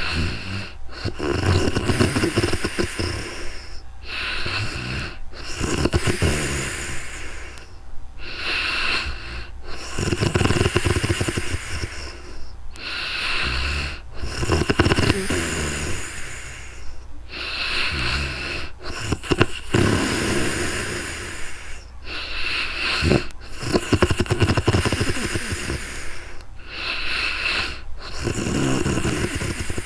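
A sleeping woman snoring, with long, rough breaths in and out repeating in a steady rhythm, about one full breath every four seconds.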